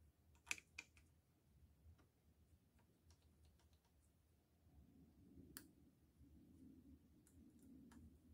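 Near silence with a few faint clicks and taps, typical of small parts or tools being handled. A sharper click comes about half a second in, followed quickly by a second, and another a little past the middle.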